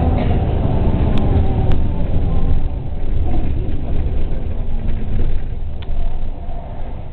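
City bus engine and road rumble heard from inside the moving bus, with two short clicks about a second in. The rumble dies down near the end as the bus slows for a stop.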